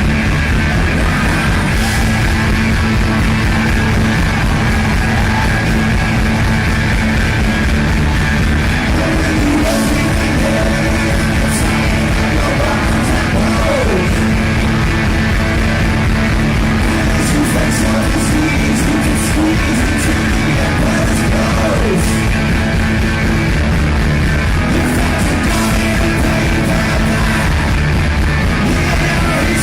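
Rock music with singing and guitar, playing steadily at a loud level.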